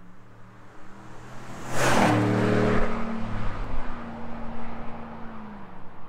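Ram Rebel pickup truck driving past: its engine note builds as it approaches, a loud burst of tyre and wind noise as it passes about two seconds in, then the engine note drops slightly in pitch and fades as it moves away.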